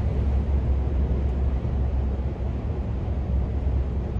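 Scania R500 V8 truck engine droning steadily at cruising speed, with road noise, heard from inside the cab.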